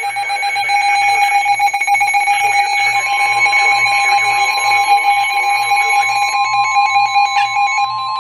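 Emergency Alert System attention tone sounding as a loud, steady electronic alarm tone, with a second slightly higher tone joining about three seconds in. It signals the start of a broadcast severe weather alert.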